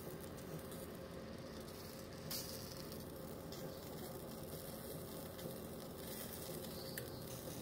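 Sliced stinkhorn mushroom eggs sizzling faintly and steadily in a dry pan, cooked without oil and starting to char, with a light tap about two seconds in.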